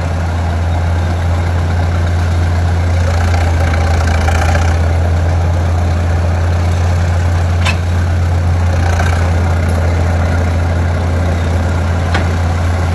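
Engine of a vintage track loader without hydraulics running steadily with a strong low hum, with two brief sharp clicks in the second half.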